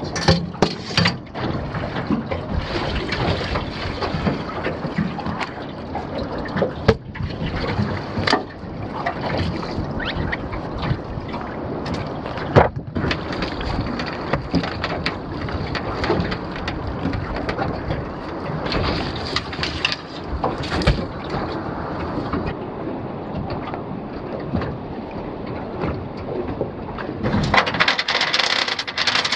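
Wind buffeting the microphone and water slapping against a small aluminium boat's hull, with scattered knocks. In the last two seconds a metal anchor chain starts rattling against the gunwale.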